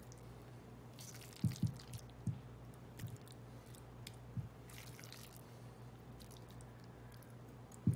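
A metal spoon scooping a moist cooked steak, onion and mushroom filling out of a stainless bowl and dropping it onto raw crescent-roll dough: a few soft wet plops and light scrapes, faint, over a low steady hum.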